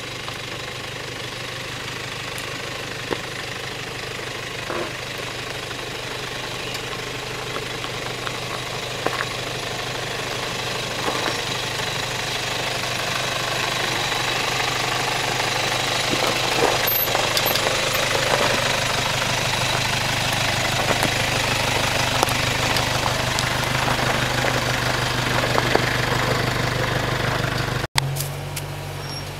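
Toyota Hilux diesel engine running steadily at low revs while the vehicle crawls down a rocky descent, getting louder as it comes close, with scattered sharp clicks and knocks of stones under the tyres. Near the end the sound cuts, and another engine takes over at a slightly higher pitch.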